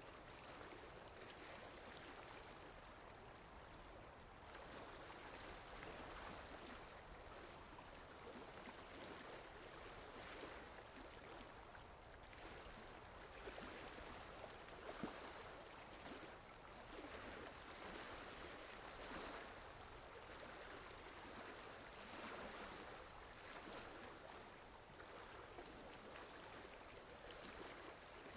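Steady rain falling, a faint, even hiss, with one sharper drip or tap about halfway through.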